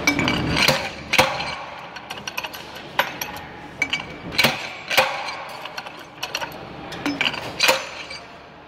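Irregular sharp metallic knocks and clinks as an Eaton truck transmission's input shaft and ball bearing are worked and tapped into the case's bearing bore, the bearing being seated.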